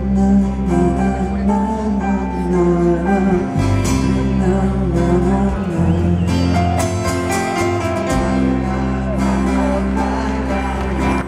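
Live rock band playing an instrumental passage through a concert PA: acoustic guitar, bass guitar, keyboards and drums, with a melody line over a steady bass.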